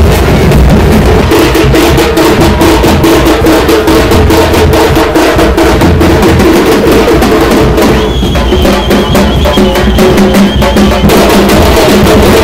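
Loud, fast festival drumming with music, the strokes coming thick and rapid; a steady high tone joins from about eight to eleven seconds in.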